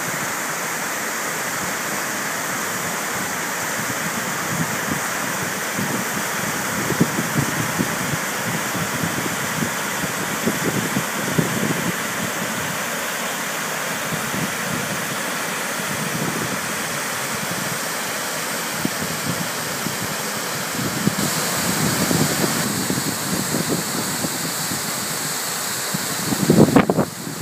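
Steady rushing of a waterfall swollen by typhoon rain, cascading down rock slabs. About two-thirds of the way through the sound shifts, to water sheeting down the stepped face of a dam.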